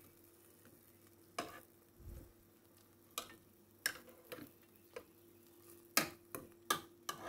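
Metal kitchen tongs clicking and tapping against the food and the nonstick air fryer basket and crisper plate while cheese sticks are checked and turned: about ten separate light clicks, with one soft low thump about two seconds in. A faint steady hum runs underneath.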